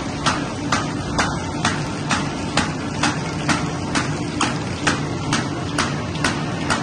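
Fully automatic paper bag making machine running: a steady low hum with a sharp, even clack a little over twice a second.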